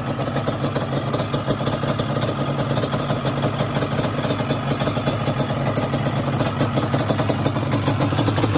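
1997 Yamaha Banshee's two-stroke parallel-twin engine idling steadily, its twin carburetors just synchronized to open together.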